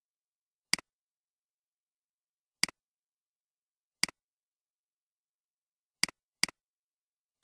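Computer mouse button clicking: six separate sharp clicks, each a quick press-and-release double tick, one to two seconds apart, with two in quick succession about six seconds in.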